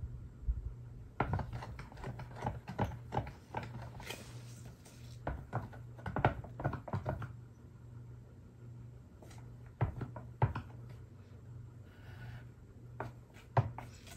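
Wooden paint stir stick knocking and scraping against the inside of a metal gallon paint can as the paint is stirred: a run of irregular clicks and taps, pausing about eight seconds in and picking up briefly again later, over a low steady hum.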